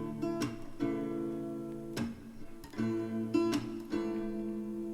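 Background music: acoustic guitar strumming chords, with a new strum about once a second.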